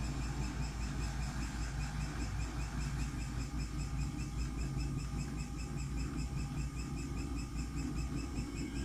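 Samsung Eco Bubble washing machine in its spin cycle: a steady hum of the spinning drum and motor, with a high whine that pulses regularly.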